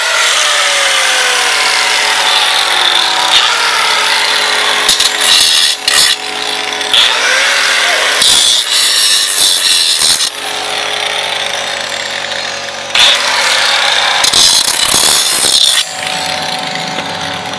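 Angle grinder working metal: its motor tone sinks under load and recovers, with three louder stretches of grinding.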